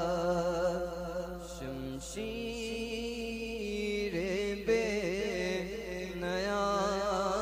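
A man's voice chanting a naat, held in long melodic lines that waver in pitch, with a brief break about two seconds in.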